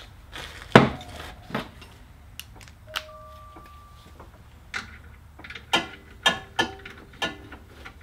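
Wrench working the steel mounting bolts of a golf cart starter generator: scattered metallic clicks and knocks, a brief steady ring about three seconds in, and a quicker run of clicks in the second half.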